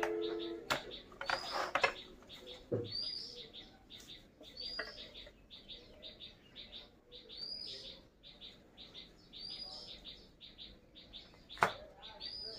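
A small songbird sings the same short phrase over and over, about every two seconds: a quick run of high chips ending in a note that rises and falls. A couple of sharp knocks come through, the loudest near the end.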